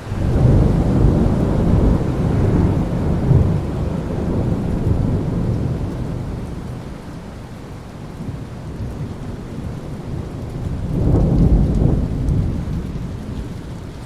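Thunder rolling over steady rain. A loud low rumble starts suddenly and dies away over several seconds, and a second swell of rumbling comes about eleven seconds in.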